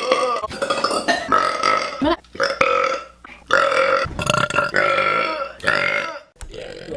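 A woman belching: about five long burps in quick succession, several lasting a second or more, with short breaks between them.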